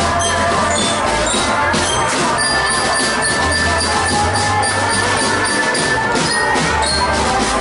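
Marching drum band playing: drums keep a steady beat under held brass notes.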